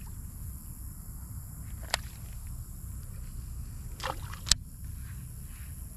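Steady low rumble with two sharp clicks about two and a half seconds apart, the second louder, and a brief scuffing just before it.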